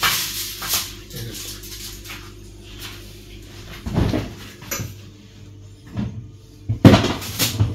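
Kitchen handling noises: a rustle at the foil-lined wire oven rack, then a series of knocks and thuds as a refrigerator door is opened and things are moved inside it. The loudest thud comes near the end, over a faint steady low hum.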